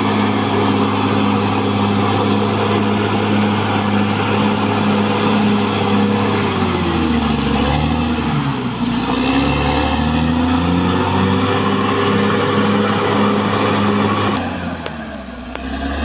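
Caterpillar D6R XL crawler bulldozer's diesel engine running steadily as the dozer pushes earth. About seven seconds in, the engine pitch sags and recovers several times as the blade takes the load. Near the end the sound changes abruptly and drops in level for a moment.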